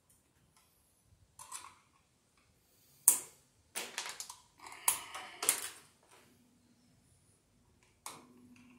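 Hand pliers clicking and clacking against electrical wire and a steel junction box as the wires are worked: scattered sharp clicks, the loudest about three seconds in, a quick cluster around four to five seconds, and one more near the end followed by a short low hum.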